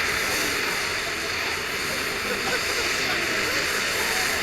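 Large ground fountain firework (Winda's Spartan Screamer) burning and spraying sparks with a steady, even hiss.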